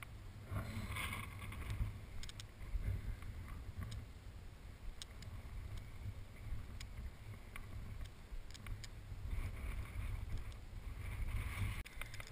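Wind buffeting the camera microphone: a steady low rumble, with a few faint clicks scattered through it.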